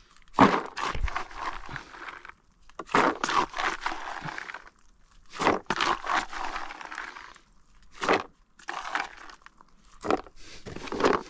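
Bait spoon scooping corn kernels from a plastic bucket and tipping them into a bait tub: several bursts of grainy scraping and rattling, each a second or two long.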